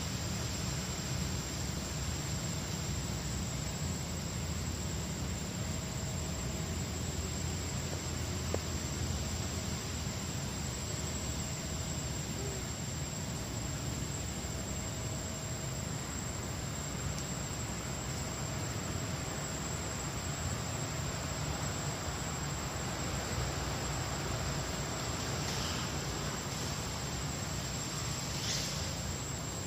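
Steady forest background hiss with a thin, constant high-pitched insect drone. A couple of faint, brief high sounds come near the end.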